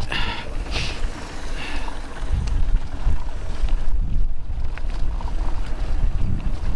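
Wind buffeting the camera microphone, with mountain-bike tyres rolling and rattling over a loose gravel and chalk track while riding downhill at speed.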